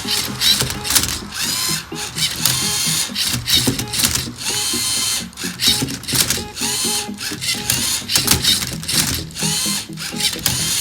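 Electric motors of a LEGO Rubik's Cube solver whirring in short repeated bursts, each rising and falling in pitch as the tray turns the cube and the arm flips it, with plastic clicks and clacks between the runs.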